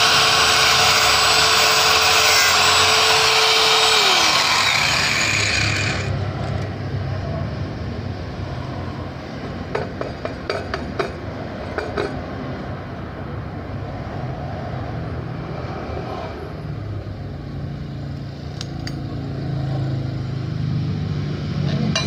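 Angle grinder cutting through the steel shell of a refrigerator compressor, its motor whine steady and then winding down about four seconds in. After that, a scatter of sharp knocks and clicks as the cut shell is struck and worked loose.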